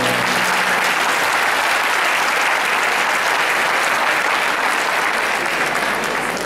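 Audience applauding steadily as the dance music ends, easing off a little near the end.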